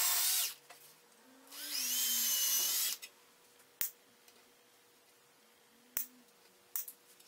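A cordless drill with a 1/16-inch bit boring small pilot holes into a mandola's wooden rim. It makes two short runs of about a second each, the whine rising as the motor spins up. A few sharp, light clicks follow.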